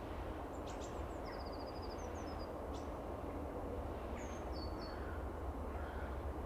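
Small songbirds chirping in winter: a few sharp high chirps, a quick trill of rapid notes, then a couple more calls about four seconds in, over a steady low background rumble.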